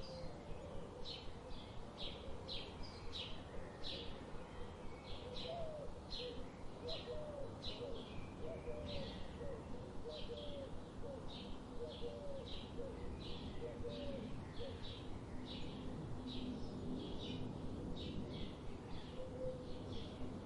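Birdsong: a bird chirping over and over, short high chirps about two a second, with lower, softer calls for part of the time over a faint steady hiss.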